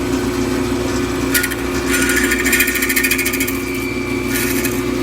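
Bandsaw motor running steadily, its blade cutting through a small wooden glazing moulding from about a second and a half in, with a high whine during the cut. The cut eases off briefly near the end, then picks up again.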